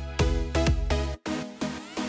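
Background electronic music with a steady beat; about a second in it cuts out briefly and comes back with the bass dropped away.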